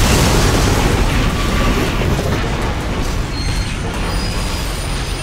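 Explosion sound effect: a sudden loud boom that rumbles on and slowly fades.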